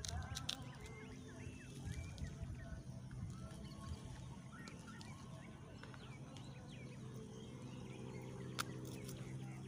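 Faint outdoor ambience with scattered small bird chirps and a few light clicks from hands handling a bowl. About halfway through a low, steady hum sets in and continues.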